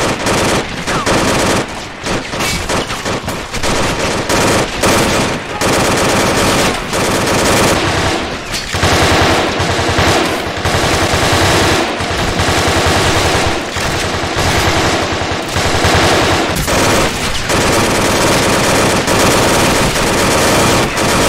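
Sustained machine-gun fire: long rapid bursts of automatic gunfire with short lulls between them.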